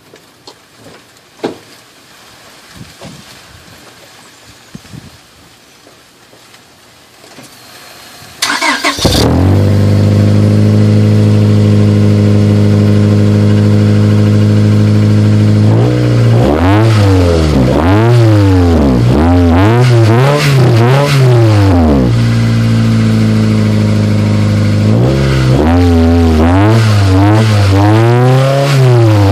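A car with a newly fitted aftermarket exhaust with a 4-inch tip. It is started about a third of the way in, catches at once, and settles into a steady idle. It is then revved in a run of short blips, about four, followed by a brief idle and about three more blips near the end.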